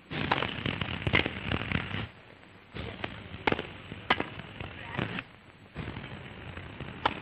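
A handful of sharp, irregularly spaced knocks, tennis racket strings hitting the ball during a doubles rally, over the hiss and crackle of an old newsreel soundtrack.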